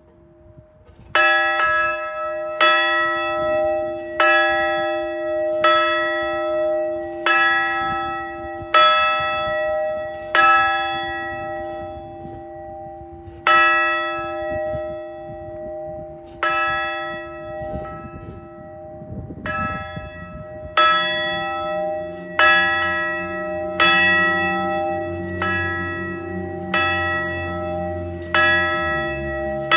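A large outdoor bell tolled one stroke at a time, about every second and a half with a few longer pauses, each stroke ringing on into the next. It is rung once for each new graduate. A low rumble runs under the later strokes.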